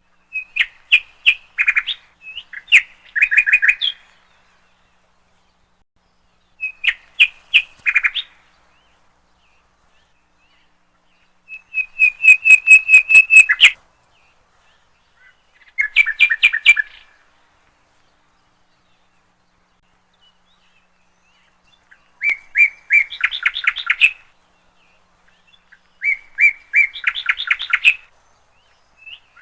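A small bird singing about six short phrases of rapid, repeated chirping notes, each phrase a second or two long, with pauses of a few seconds between them.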